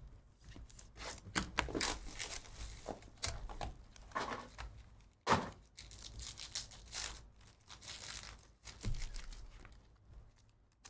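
Sports-card pack wrappers being torn open and crinkled, with rustling handling throughout and one sharp crack about halfway through.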